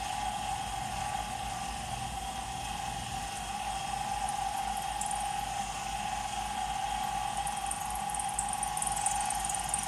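Smithy 1220 LTD combo mill-lathe running with a steady whine as its 3/16-inch end mill, fed by hand on the table, cuts into a metal plate in the vise. A light, high scratchy crackle of the cut comes in about three-quarters of the way through.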